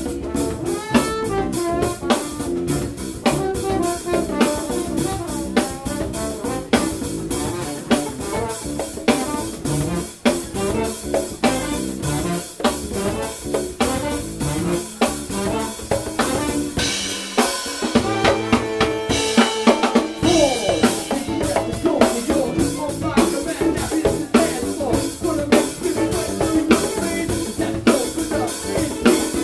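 Live funk band playing an instrumental passage, the drum kit loudest with snare and bass drum hits over trombone and electric guitar. The bass and kick drop out for a few seconds just past the middle, then come back in.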